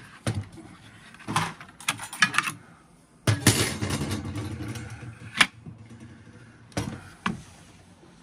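Clicks, knocks and clatter of a Ryobi 18-volt cordless circular saw being taken apart by hand. The loudest sound, about three seconds in, is the freed circular saw blade set down on the workbench, a clatter that dies away over about a second. Sharp clicks of the saw's metal guard and plastic housing follow.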